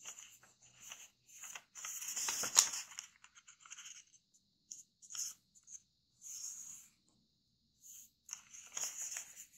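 Kami origami paper rustling and crackling as fingers fold its corners to the centre and press the creases flat: short scratchy bursts with pauses between, loudest about two and a half seconds in, where one sharper crackle stands out.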